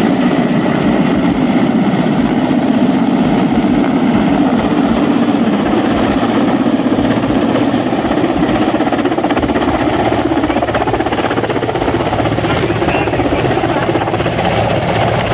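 Helicopter running close by: a steady, loud rotor and turbine noise with a regular chop from the blades, its main pitch shifting higher about two-thirds of the way through.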